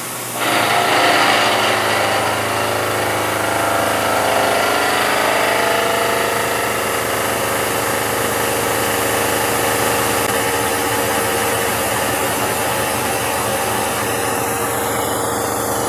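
Milling machine spindle running at 1600 RPM with the cutter taking a 40-thou cut on a steel vise jaw at 8 inches a minute. The machine hum gets louder about half a second in as the cut begins, then stays steady.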